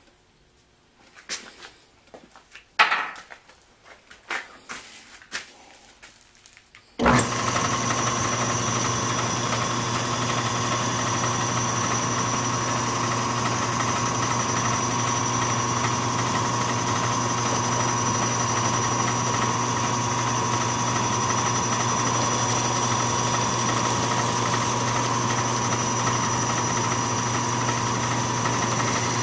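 A few scattered clicks and knocks of metal being handled, then about seven seconds in a small metal lathe's motor switches on. It runs steadily with a constant hum and whine as the chuck spins.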